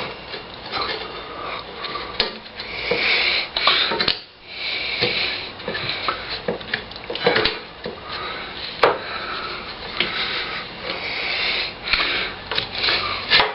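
Metal parts of a motorcycle's front wheel assembly clinking, knocking and scraping as they are worked into a tight fit by hand, with many short irregular clicks over rubbing.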